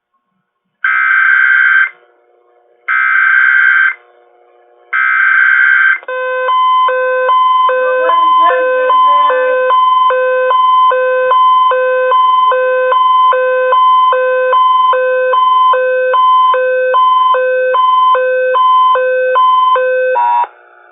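Emergency Alert System header: three short bursts of digital data screech about a second apart, followed by a loud pulsing alert tone that beats a little over once a second for about fourteen seconds. This marks the start of a new broadcast emergency alert.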